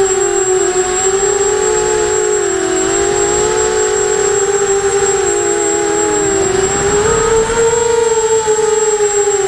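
Racing quadcopter's brushless motors and propellers whining, the pitch wavering with throttle, sagging in the middle and rising again about seven seconds in. A steady thin high tone runs alongside.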